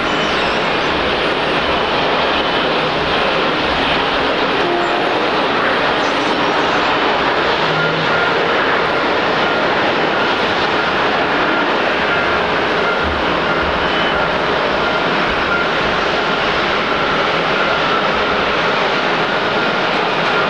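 Airbus A320neo's Pratt & Whitney geared turbofan engines and the airframe rolling out on the runway just after touchdown: a steady, even jet rush, with a faint thin whine coming in about eight seconds in.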